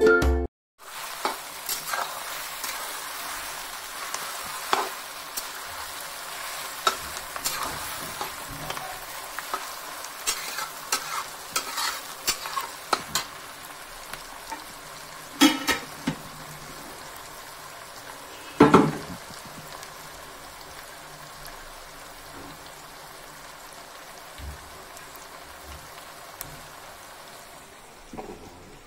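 Sliced onions frying in hot oil in a metal kadai, a steady sizzle with a spatula scraping and knocking against the pan now and then as they are stirred.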